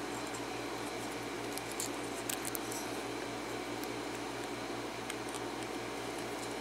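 A few faint, short metallic clicks and taps from a five-pin lock and its loose pins being handled, over a steady low hum.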